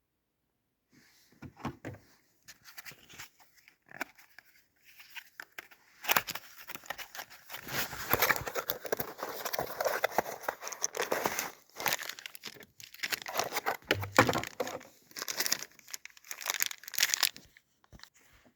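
Irregular crinkling and rustling handling noise with scattered sharp clicks. It starts sparsely about a second in and becomes busy from about six seconds on.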